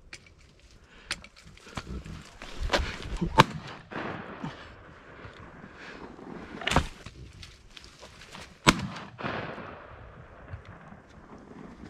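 Shotgun shots fired at a passing duck: about four sharp reports spread over several seconds, the loudest about three and a half and nine seconds in.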